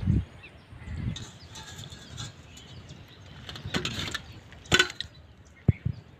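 Wind gusting on the microphone in an open field with faint birdsong, then a sharp ringing metal clink and two short knocks as a steel pan of peeled boiled eggs is handled.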